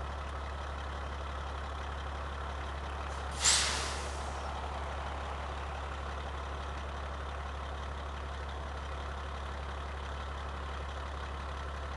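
Peterbilt semi truck's diesel engine idling steadily, with one sudden loud air-brake hiss about three and a half seconds in that fades away over about a second.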